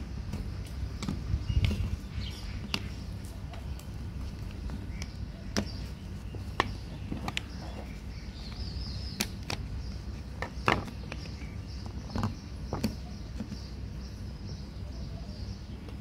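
Small screwdrivers prying and clicking at the snap-fit catches of a washing machine's plastic door lock housing. Irregular sharp clicks and taps sound over a steady low hum.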